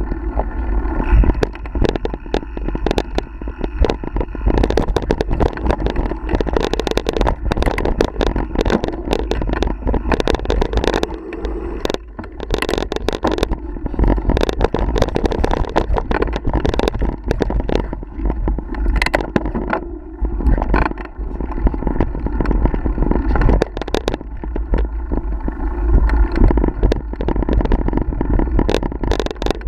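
Mountain bike riding a rough dirt singletrack, heard from a camera on the rider: a constant low rumble of wind and vibration with frequent irregular clatters and knocks as the bike rolls over roots and rocks.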